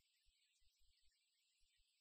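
Near silence: only a faint hiss and a thin steady high tone.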